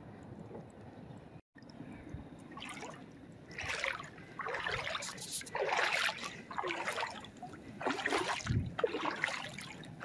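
Water splashing and trickling in irregular bursts, starting about two seconds in.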